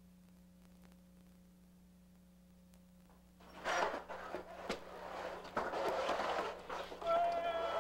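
Near silence with a faint steady hum for about three seconds. Then knocks, rustling and shuffling as a door opens and people move about a room, with a steady pitched tone starting near the end.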